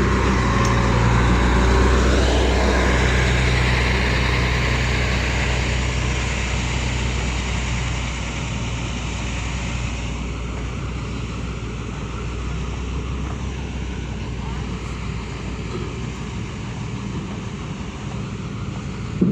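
Heavy machinery engine running steadily, loudest in the first several seconds and then settling to a lower level.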